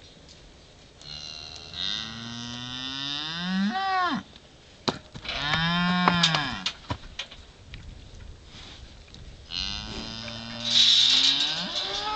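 Cattle mooing: three long, drawn-out moos, the last the loudest, with a couple of sharp knocks in the middle.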